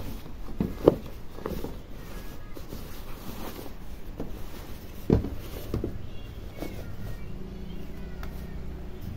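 Chino trousers being handled and spread out on a table: fabric rustling with scattered soft knocks, the sharpest about a second in and another about five seconds in. A low steady hum comes in near the end.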